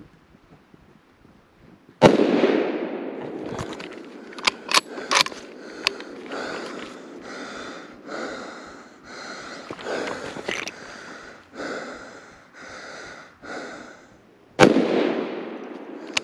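Two deer-rifle shots about twelve seconds apart, each a sharp crack with a long echoing tail. Between them come a few sharp clicks and then steady footsteps crunching through snow, about two a second.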